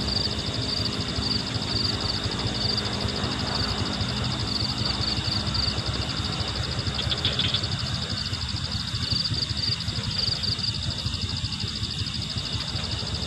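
Night insects trilling: a high, fast pulsing chirr that comes and goes in spells, over a steady low rumbling noise.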